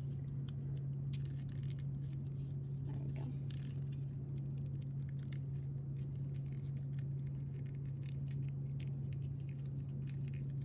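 Folded origami paper crinkling and rustling in the fingers, many small crackles, as the last flap of a paper ninja star is worked into its pocket. Under it runs a steady low hum.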